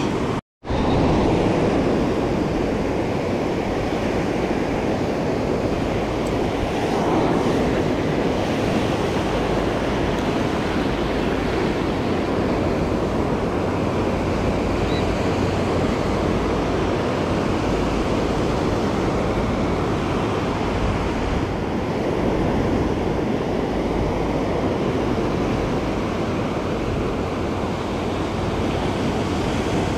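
Ocean surf breaking and washing up a sandy beach, a steady rush of waves. The sound cuts out completely for a moment about half a second in.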